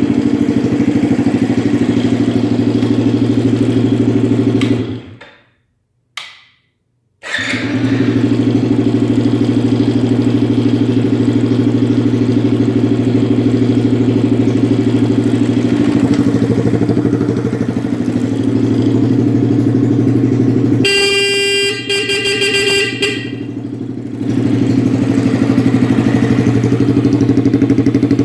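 Small engine of an Eco-marathon urban car running steadily on a Megasquirt 3 engine management unit at its first start-up. The sound cuts out for about two seconds around five seconds in, then the engine runs on. A horn sounds for about two seconds near the three-quarter mark.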